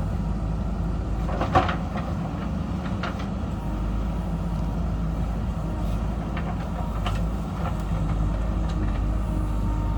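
JCB backhoe loader's diesel engine running steadily under work, with one sharp knock about one and a half seconds in and a few fainter knocks later.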